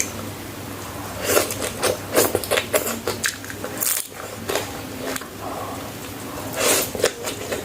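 Close-miked biting and chewing of crunchy food: a run of irregular sharp crunches, easing off past the middle and picking up again near the end.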